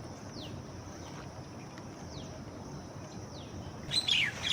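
Wild birds calling over a steady outdoor background hiss: a few short, thin falling chirps, then a louder burst of falling calls about four seconds in.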